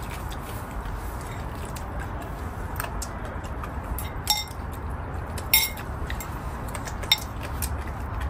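Spoons and chopsticks clinking against ceramic bowls during a meal of congee: scattered light taps, with three sharper, ringing clinks about four, five and a half and seven seconds in, over a steady low rumble.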